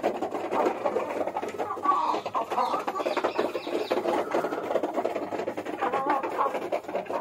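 A flock of domestic hens clucking, many short calls overlapping without a break, as they feed.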